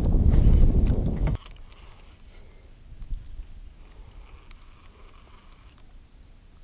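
Steady high-pitched drone of insects, under a low rumble that cuts off suddenly about a second and a half in.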